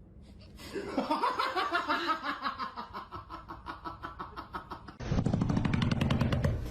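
Laughter in quick pulses that fall in pitch, then about five seconds in an abrupt switch to a louder, low, rapid rattling.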